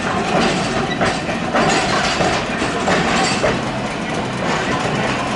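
Okayama Electric Railway tram rolling on street track, a steady running rumble with a few clacks as the wheels cross rail joints.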